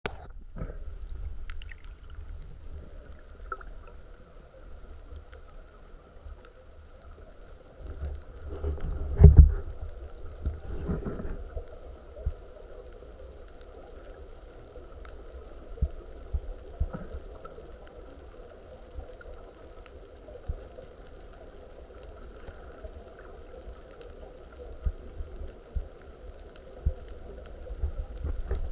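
Underwater ambience heard by a submerged camera: a low, muffled rumble with scattered soft knocks, and a louder surge of water noise about nine seconds in.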